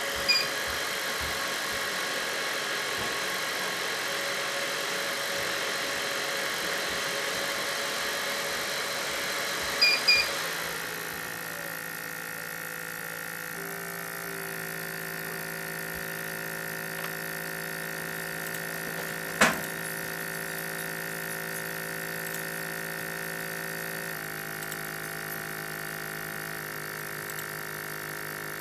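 Jovy RE-7500 BGA rework station running: a steady rush of hot air with a whine over it, and short electronic beeps near the start and again about ten seconds in. Right after the second beeps the air rush stops, leaving a steadier machine hum with a pitched drone, and one sharp click comes about two-thirds of the way through.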